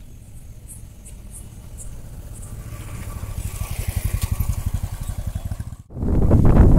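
A vehicle engine running with a fast, even low pulse, growing louder over a few seconds, then cut off abruptly near the end. Loud wind rumble on the microphone follows.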